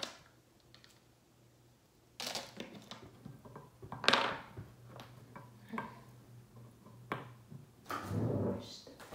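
Scattered knocks and clicks of small tools and watch parts handled on a wooden desk, the loudest about four seconds in, with a longer rustling clatter near the end.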